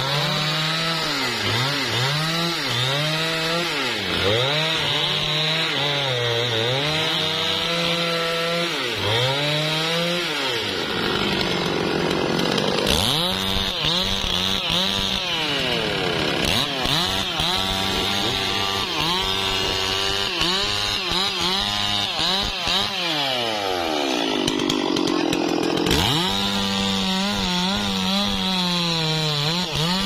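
Two-stroke gasoline chainsaw cutting through a teak log. The engine pitch keeps climbing and dropping as the chain bites into the wood and eases off.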